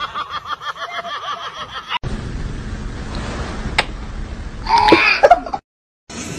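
A person laughing in quick, evenly repeated pulses. After a sudden cut comes a steady hiss with a single click, then a loud short cry from a voice, about five seconds in.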